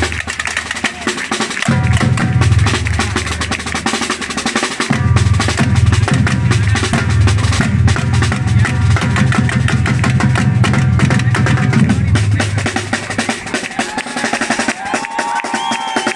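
Percussion group drumming: a dense run of snare and wood-block hits over deep bass drums, which drop out twice and stop about three quarters of the way through. Near the end a few held pitched notes come in.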